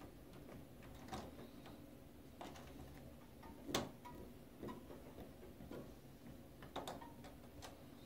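Brass door knob being turned and handled: a few irregular light clicks of the knob and its latch, the loudest just before four seconds in.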